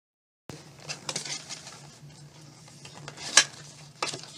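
A small cardboard candy box being handled and opened by hand: rustling and scraping of the cardboard with scattered clicks, and a loud sharp snap about three seconds in and another near the end.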